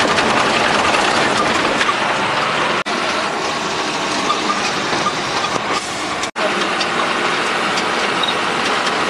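Steady, loud engine and road noise inside the cab of a moving truck. It breaks off for an instant twice, about three and six seconds in.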